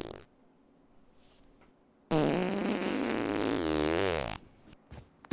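A brief fart right at the start, then a long, drawn-out fart of about two seconds whose pitch drops near the end.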